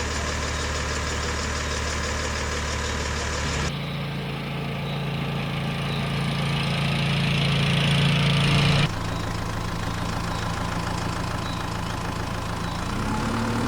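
Engine idling steadily in three sections that change abruptly, about a third and two thirds of the way in. Near the end its pitch rises as it revs up.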